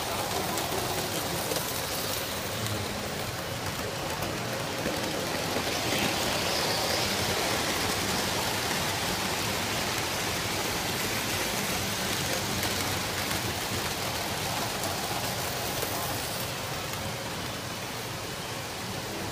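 Lionel O scale model trains running on three-rail track: a steady rushing rumble of wheels and motors with no distinct events.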